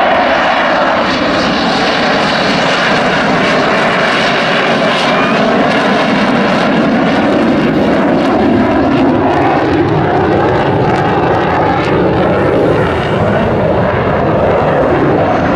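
Loud, steady jet noise of an F-16 fighter's single turbofan engine as it flies a tight display manoeuvre overhead, its tone slowly wavering and shifting as the jet turns and moves away.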